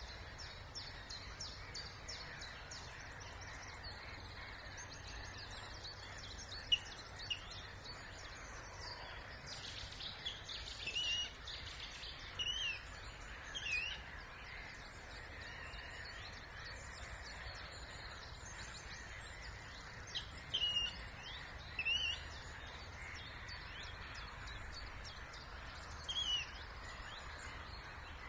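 Wild birds singing and calling: a continuous background of faint song, with louder short calls that come a few at a time, first around the middle and again later on. A low steady rumble lies underneath.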